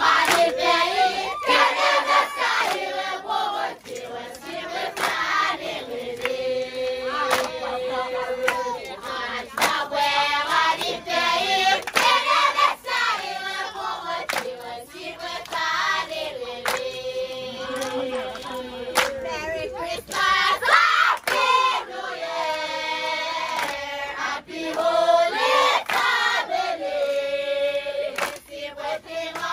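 A group of voices singing and chanting together, with held notes, cut through by many sharp hand claps.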